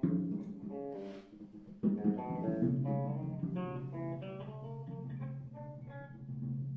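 Guitar playing a run of plucked single notes over a low note held from about a third of the way in.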